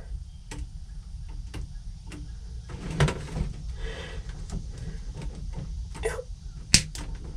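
Hands working at hoses and a strap in a boat's engine bay: scattered small clicks, rattles and knocks, with the sharpest knock near the end, over a low steady rumble.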